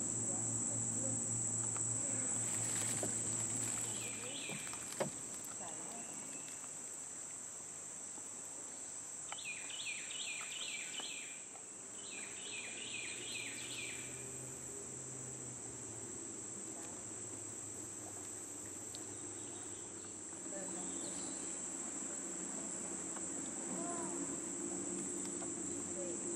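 Steady high-pitched drone of an insect chorus from the swamp woods. About ten seconds in, and again near thirteen seconds, a bird gives a quick run of about five falling notes.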